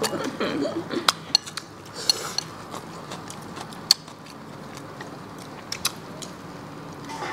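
Chopsticks clinking and tapping against porcelain bowls while eating, with scattered sharp clicks a second or so apart.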